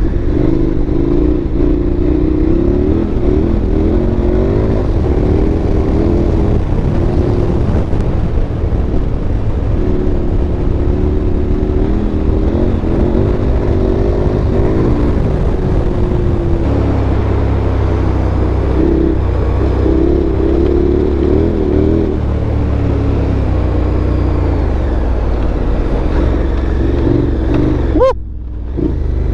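KTM 1290 Super Adventure's V-twin engine running under way on a gravel road, its revs rising and falling with the throttle. Near the end the sound briefly drops off and then picks up again.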